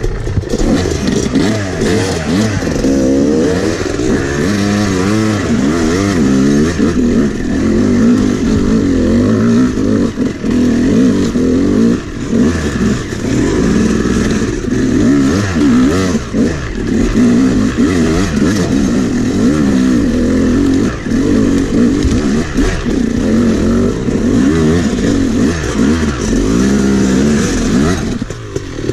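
Yamaha YZ250X two-stroke dirt bike engine revving up and down under load as it climbs a rocky trail, its pitch rising and falling constantly with the throttle.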